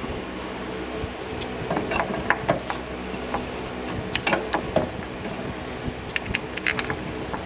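Hand tools clicking and clinking on metal in short irregular bursts while a socket wrench works the torque mount's bracket bolt, over a steady background hum.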